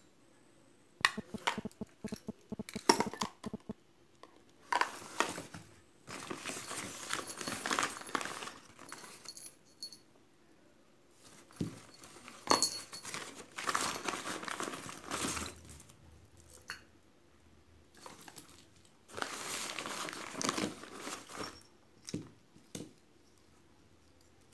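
Paper bouquet wrapping crinkling and rustling in three long stretches as items are pushed into it, with a quick run of sharp clicks and taps of small hard items being handled about a second in.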